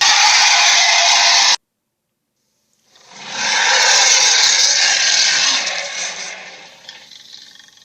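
Two gorilla sound-effect calls, loud and noisy without a clear pitch: the first cuts off abruptly about a second and a half in, and after a short silence a second one swells up about three seconds in, holds, and fades away near the end.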